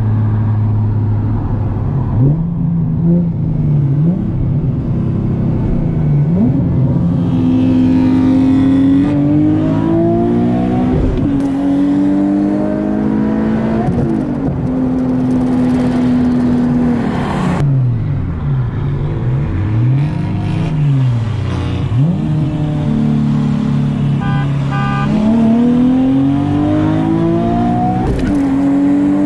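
Nissan 370Z's 3.7-litre V6 with a full ISR exhaust, heard from inside the cabin at full throttle in a roll race. The engine pitch climbs and drops back at each gear change, several times over. In the middle there is a stretch where the revs rise and fall quickly.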